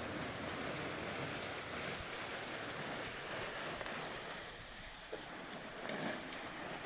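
Steady wash of small sea waves, with wind on the microphone and a single faint click about five seconds in.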